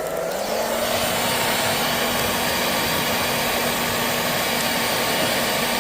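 Hairdryer running steadily, blowing air onto a wood fire: an even rush of air over a constant motor hum.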